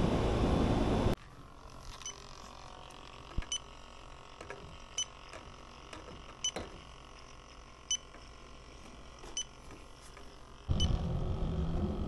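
Handheld electronic refrigerant leak detector beeping briefly about every second and a half, with faint ticks between, as it is held to an indoor evaporator coil. A louder steady outdoor noise fills the first second and returns near the end.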